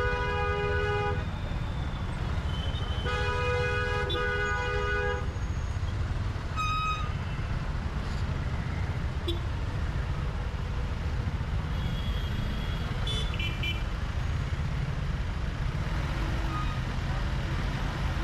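A two-note vehicle horn sounds in two long blasts: the first ends about a second in, the second runs from about three to five seconds. Underneath is a steady low rumble of road travel.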